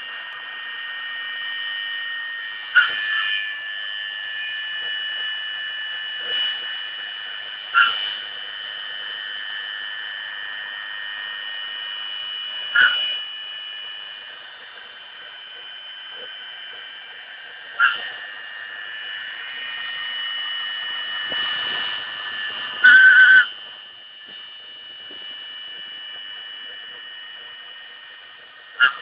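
Rotozip router spinning a 1/8-inch Sabercut bit on a Light Machines Prolight 2000 CNC mill, making a steady high whine as it cuts foam. Brief, sharper, louder bursts come about every five seconds, and the loudest is about three-quarters of the way through.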